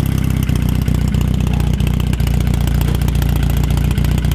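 1962 Austin-Healey Sprite Mk II's four-cylinder A-series engine, bored out to about 1340 cc with a mild fast-road camshaft, idling steadily just after starting, with a rapid, even firing beat. The exhaust exits straight up through the bonnet and has its quiet pipe fitted.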